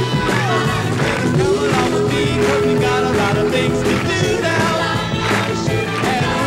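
A pop-rock vocal group singing in harmony over a band with electric guitar and a steady drum beat.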